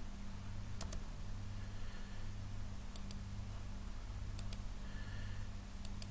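A handful of sharp clicks from a computer keyboard and mouse, some in quick pairs, over a low steady electrical hum.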